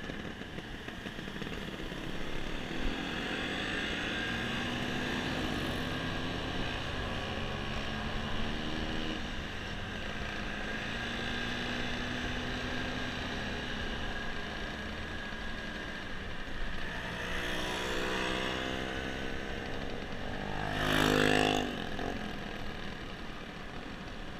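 Small motor scooters running on the move, the rider's own Honda scooter and a group of Vespas ahead, with the engine pitch rising and falling as they speed up and slow down. Near the end one engine briefly surges louder, its pitch climbing.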